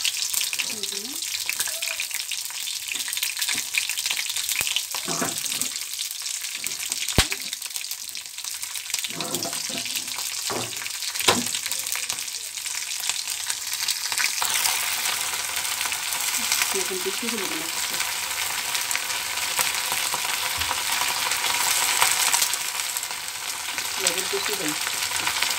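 Green chillies and garlic sizzling in hot mustard oil in a karahi: a steady frying hiss that grows stronger a little past halfway. Two sharp clicks are heard along the way.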